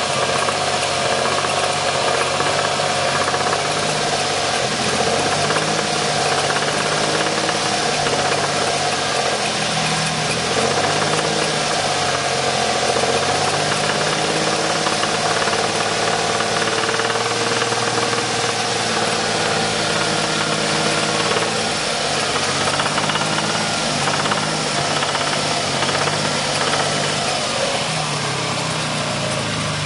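1994 Ford Taurus SHO's Yamaha-built DOHC V6 running steadily with a knock, its speed wavering slightly. The knock developed about 500 miles after a timing belt change, and the owner does not know where it comes from.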